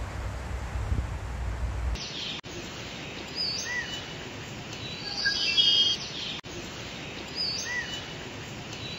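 Stock rainforest ambience of birds chirping and calling, a short stretch that repeats about every four seconds. For about the first two seconds a low wind rumble runs instead, cut off abruptly.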